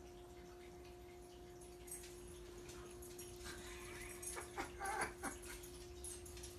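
A few short, high cries from a pet about four to five seconds in, with some faint clicks, over a quiet steady electrical hum.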